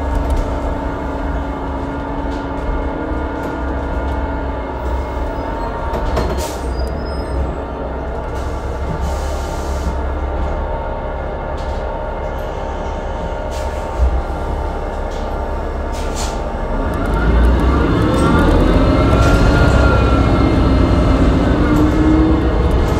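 Inside a 2012 New Flyer C40LF city bus: the Cummins Westport ISL G natural-gas engine and Allison B400R automatic transmission drone steadily while under way. There is a sharp knock about 14 seconds in. From about 17 seconds in the drone gets louder, with a whine that rises and falls in pitch.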